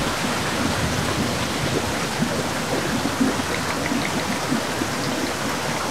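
Heavy rain falling steadily, a dense even hiss.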